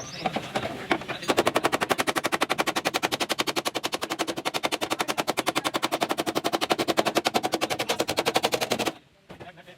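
A power tool hammering rapidly in auto body repair, an even train of sharp strikes about twelve a second. It starts about a second in and cuts off abruptly near the end.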